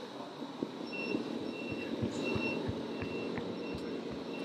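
Reversing warning beeper from a radio-controlled scale truck's sound module: a steady series of short, high beeps, about three every two seconds, starting about a second in. Under it are a steady low background noise and scattered soft low thumps.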